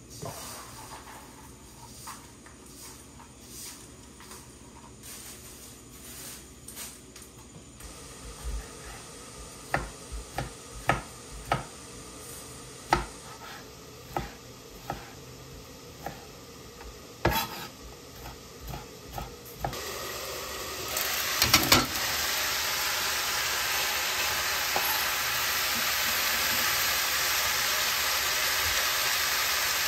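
Green bean curry cooking in a pan: scattered knocks and scrapes of a utensil against the pan. About two-thirds of the way through, a steady frying sizzle starts suddenly, with a few loud clatters as it begins.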